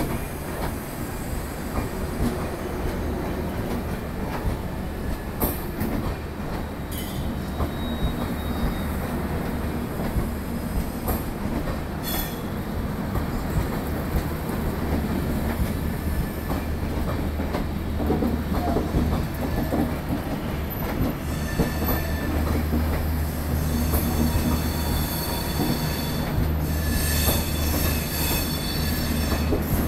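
LHB passenger coaches rolling slowly past a station platform as the train comes in: a steady rumble of wheels on rail with scattered clicks over the joints. From about two-thirds of the way through, a high wheel squeal joins in as the train slows to a stop.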